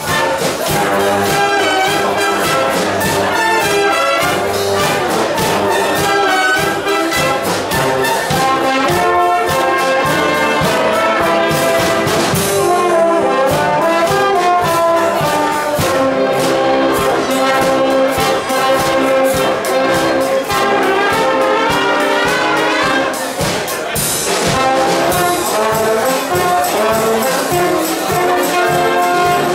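Wind orchestra playing a Latin medley live: trumpets, trombones, saxophones, flutes and clarinets with percussion keeping a quick beat.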